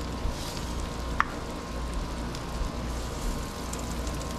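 Butter-marinated bonnethead shark fillets sizzling steadily on a hot copper grill mat over a gas grill, with one brief click about a second in.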